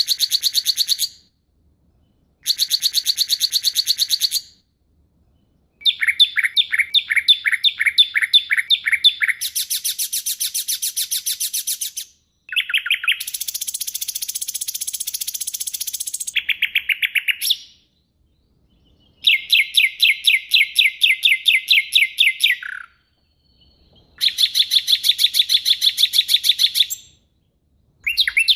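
Songbird singing rapid-fire 'tembakan' phrases: bursts of quickly repeated sharp high notes, each burst lasting two to four seconds with short pauses between. One burst is a harsher, buzzier chatter.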